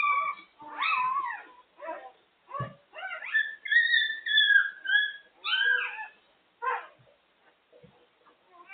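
Newborn puppies crying in high-pitched squeals and whimpers, several calls overlapping, with one longer wavering cry in the middle. The cries thin to a few faint squeaks near the end. A single soft thump comes about a third of the way in.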